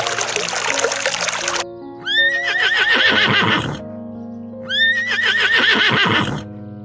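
Background music throughout. A rushing noise cuts off about a second and a half in, then an animal gives two near-identical whinnying calls, each about two seconds long with a quavering pitch.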